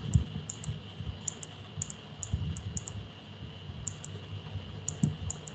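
Light, irregular clicks and taps of a stylus on a tablet during handwriting, about a dozen spread unevenly, with a few soft low knocks.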